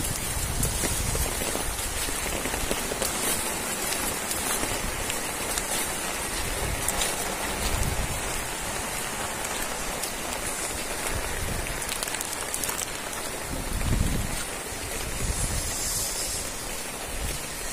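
Heavy rain falling steadily onto standing water and wet ground, an even hiss of drops. A few low rumbles come through under it, the strongest about fourteen seconds in.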